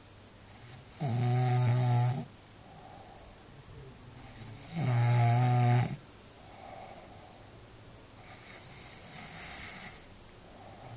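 A person snoring in sleep: two loud snores, each about a second long and about four seconds apart, with softer breaths between them. Near the end comes a longer, airy breath with no snore.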